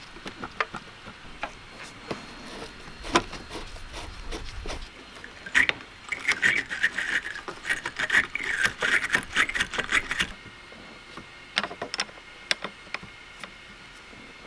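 Hand-tool work on a car battery terminal: scattered metallic clicks and knocks, then about four seconds of dense scraping and clicking starting about six seconds in, followed by a few more clicks.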